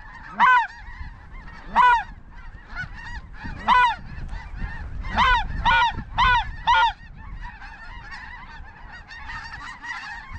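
Geese honking: seven loud, close honks in the first seven seconds, over the steady chatter of many more distant geese calling.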